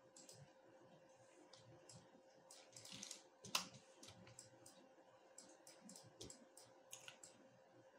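Scattered faint clicks of a computer mouse and keyboard, with one sharper click about three and a half seconds in, over a faint steady hum.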